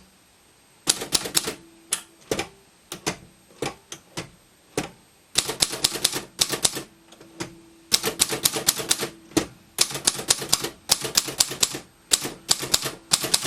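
Keys striking on a Triumph Tippa De Luxe portable manual typewriter, typed in runs of several strokes a second with short pauses between them.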